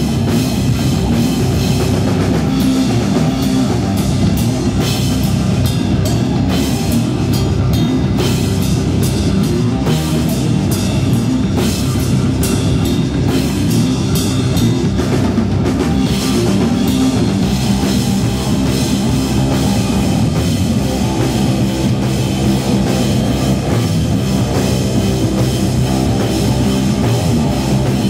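A live stoner rock band plays loud, with electric guitar, bass guitar and a drum kit. Cymbal crashes come thick through roughly the first half and thin out after about sixteen seconds.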